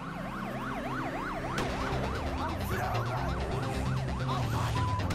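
Emergency-vehicle siren sound effect yelping rapidly up and down, about three to four sweeps a second, mixed over music with a steady low bass line. A sharp hit sounds about a second and a half in, and the siren breaks off near the end.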